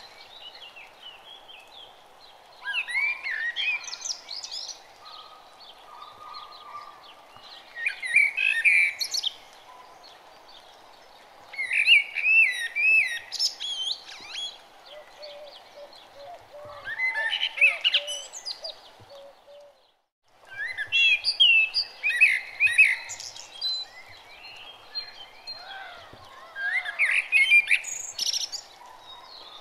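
Birds singing, with bursts of quick warbling chirps every few seconds over a steady low hiss. The sound cuts out briefly about twenty seconds in.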